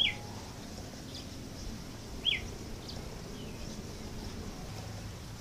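Birds chirping: two loud short calls that slide down in pitch, about two seconds apart, with fainter high chirps between them over a faint low hum.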